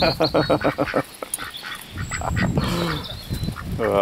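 Domestic ducks quacking, with a quick run of short quacks in the first second and then more scattered calls.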